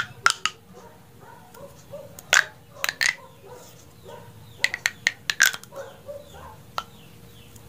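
Orange plastic pop tube fidget toy being stretched and squeezed, its ribs snapping open and shut with sharp clicks that come in small clusters every second or two.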